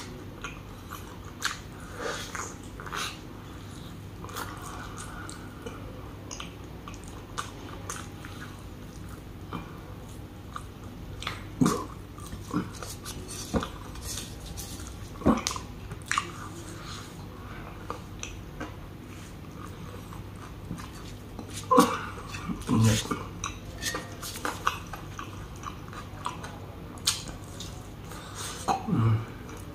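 Close-miked eating sounds: a person chewing mouthfuls of mutton and rice, with irregular clicks and taps as a plastic-gloved hand scoops rice off a metal plate.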